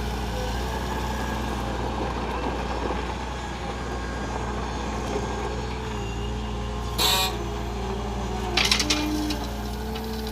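Heavy diesel engine running steadily, with a short sharp hiss about seven seconds in and a brief cluster of knocks and rattles about a second and a half later.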